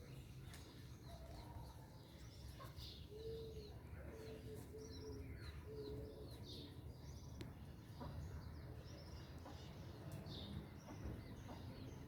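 Many small birds chirping, with short high calls scattered throughout, and a few low, even notes about three to six seconds in, over a faint low rumble of background noise.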